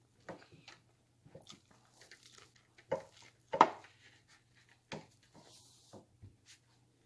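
Irregular knocks and clicks, like things being handled, with the sharpest knock about three and a half seconds in, over a faint steady low hum.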